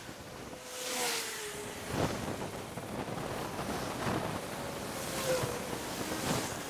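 Wind rushing over the microphone of a moving cyclist, swelling and easing, with road traffic passing.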